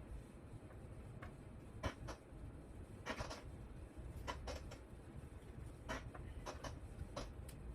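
Faint, scattered clicks and scratches of hands handling small parts and cables, irregular and spaced out, over a low steady room hum.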